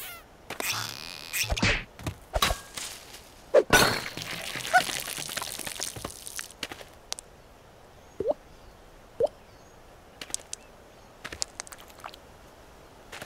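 Cartoon sound effects: a few thumps, then a long fizzing hiss as a soda bottle sprays, followed by scattered small clicks and two short rising squeaks.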